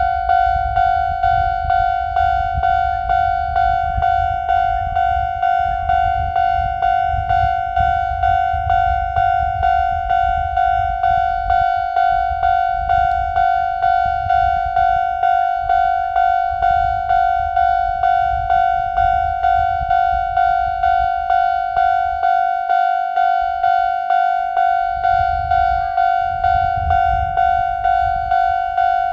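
Japanese level-crossing electronic warning bell ringing a steady, evenly repeated single-pitched ding, about three strokes every two seconds. A low rumble sounds underneath and drops out briefly about two-thirds of the way through.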